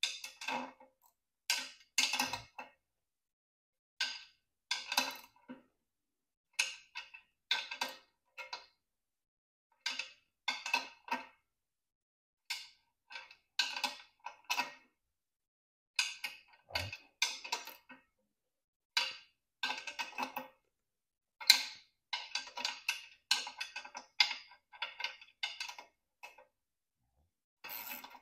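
Hand socket ratchet clicking in short bursts of strokes with pauses between, as small bolts are turned into the threaded holes of an aluminum propeller hub to press it off its bushing. One low knock about two-thirds of the way through.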